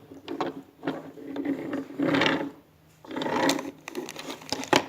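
Small plastic toys and packaging being handled: short rustles and a few light clicks.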